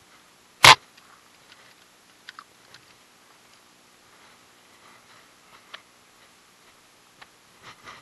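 Handling noises: one loud, sharp knock under a second in, then faint scattered clicks and small knocks.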